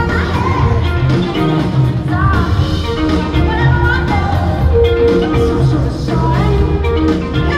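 Live rock band playing: a woman's lead vocal over electric guitars, bass and drums, recorded from the audience in a large arena.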